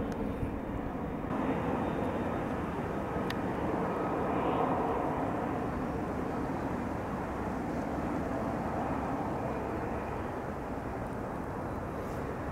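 An F-35A's single Pratt & Whitney F135 turbofan running at low power as the jet slows and taxis after a full-stop landing: a steady jet rumble and hiss with a faint thin whine over it, swelling slightly a few seconds in.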